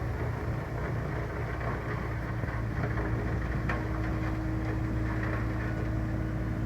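A steady motor drone with an even hum, running unchanged throughout, and one short sharp click a little over halfway through.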